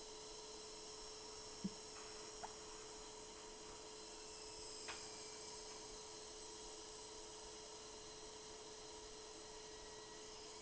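Faint, steady electrical hum with a thin high whine from running workbench equipment, broken by a few faint light clicks.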